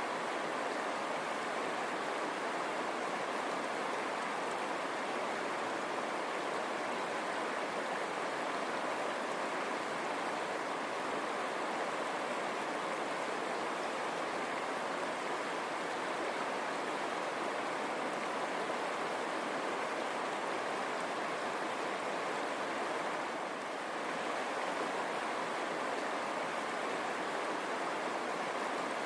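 River water running over stones: a steady rushing babble.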